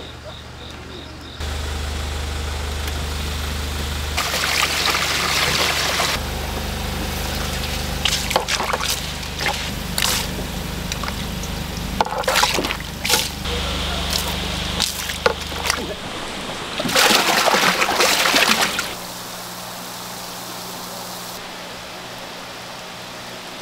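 Live fish thrashing in a plastic tub of water, splashing and sloshing in two loud bursts with scattered sharp slaps in between, over a steady low hum.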